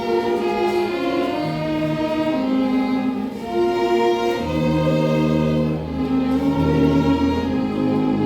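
Small ensemble of strings and brass playing a hymn in slow, held chords. A strong low tuba bass part comes in about halfway through.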